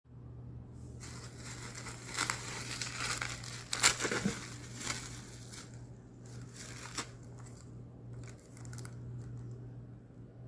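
Bubble wrap and packaging crinkling and rustling as they are handled, busiest in the first half, with a sharp crackle about four seconds in and a click near seven seconds. A steady low hum runs underneath.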